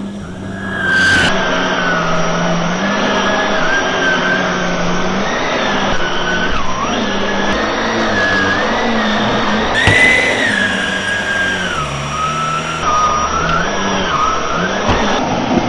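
Hoover WindTunnel Air SH40070 canister vacuum cleaner running on a thick rug, a steady motor whine with a lower hum beneath it, both drifting up and down in pitch as the load changes.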